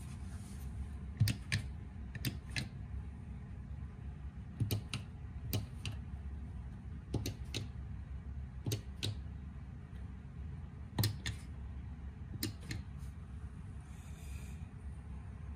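Sharp clicks or taps, two or three at a time in quick succession, with a pause of about a second or more between clusters, over a steady low hum.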